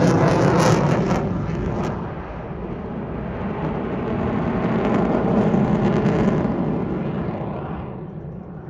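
F-22 Raptor jet noise from a demonstration pass, loud at first, easing after about two seconds, swelling again around five seconds in, then fading away near the end.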